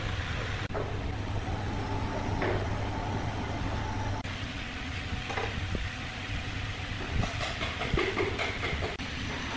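Steady hum and rumble of sawmill machinery running, with a few short knocks and clunks from the heavy log and timber being handled, most of them in the second half.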